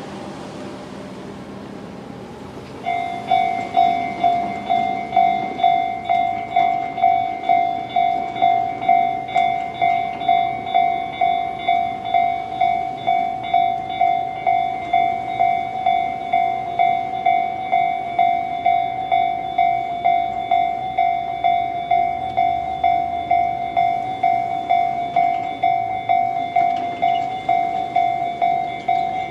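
Japanese railway level-crossing alarm switching on about three seconds in: the electronic Tobu-type bell tone ('Tobu sound C'), a clear ringing ding repeated about one and a half times a second, the warning that a train is approaching and the crossing is closing.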